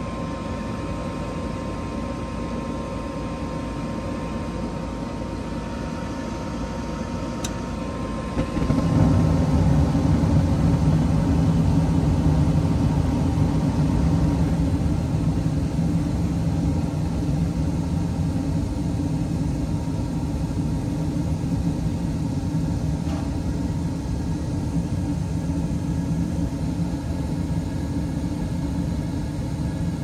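2019 Carrier Performance Series gas furnace starting a heating cycle. The draft inducer motor runs with a steady whine. About eight and a half seconds in, the five burners light and a low rumble of burning gas rises suddenly and carries on steadily, with a faint click from the gas valve just before it.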